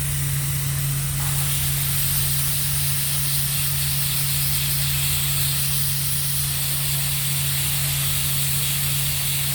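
Gerber Sabre 408 vacuum CNC router table running: a steady low hum under a constant rush of air hiss from the vacuum hold-down and machine.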